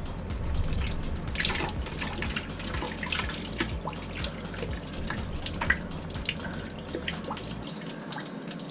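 Dirty water running and dripping out of the opened filter port of a Rinnai tankless water heater into a container, with many small irregular drips and splashes. A low hum underneath stops near the end.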